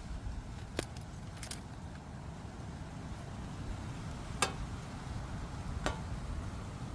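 A few light, sharp clicks or clinks, four spread over several seconds, over a steady low rumble.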